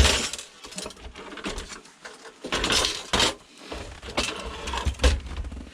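Knocks and rattles of metal and plastic parts as the heavy screen panel is worked loose and lifted out of an old computer monitor's casing, with a few sharper clatters spread through.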